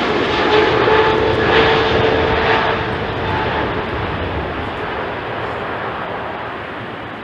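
Jet airliner's engines passing close, a loud rush with a steady whining tone, then fading away.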